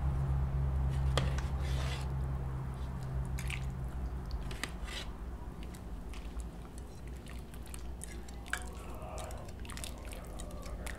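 Soup broth being ladled from a pot into a clay bowl: liquid pouring and dripping, with a few short clicks of the ladle against the bowl and pot. A low steady hum runs under the first four seconds, then stops.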